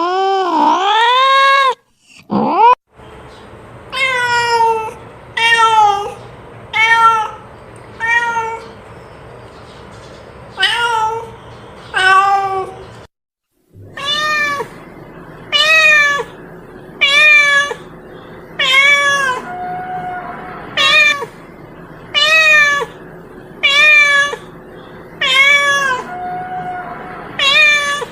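Domestic cat meowing over and over: a long drawn-out meow at the start, then a string of short arched meows about one a second, with two brief silent breaks. The meows of a hungry cat calling to another cat.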